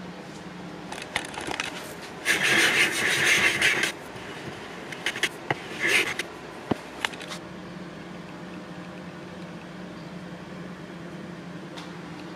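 Small hand plane shaving a blank with a yellowheart inlay strip: one long cutting stroke about two seconds in, then shorter strokes with a few sharp clicks around six to seven seconds in, over a steady background hum.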